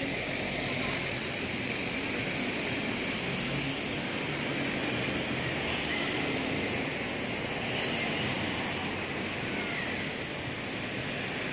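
Street traffic: cars and a van passing on a wet road, a steady hiss of tyres on wet asphalt mixed with engine noise.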